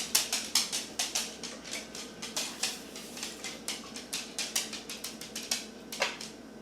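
Almond milk glugging as it is poured from a carton into a measuring cup. It is a quick run of gurgles, about five a second, that thin out and stop shortly before the end.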